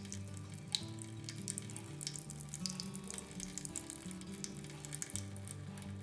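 Water draining out of a tilted plant pot and splattering into a sink basin: an uneven, continuous patter of drips and splashes that starts suddenly. Soft background music plays underneath.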